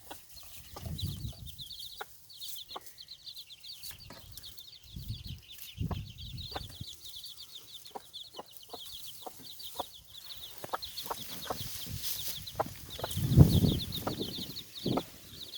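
Four-day-old chicks peeping continuously, many short high falling peeps overlapping, with the mother hen's low clucks now and then, loudest about thirteen seconds in.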